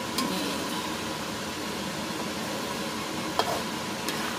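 Chili sambal sizzling and bubbling in oil in an aluminium wok as it reduces, close to done. A few sharp clicks come from a wooden spatula knocking the pan as it stirs.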